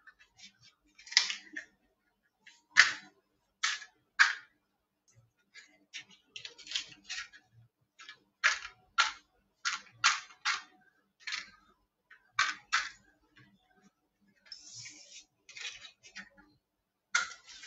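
Kitchenware being handled and set down on a countertop: irregular sharp clinks and knocks of bowls and utensils, more than a dozen in all, with a short scraping rustle a little before the end.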